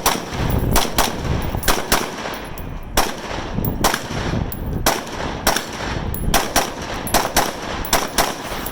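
Rifle shots from several shooters on a firing line, sharp and irregular at about two to three a second, some overlapping in quick pairs.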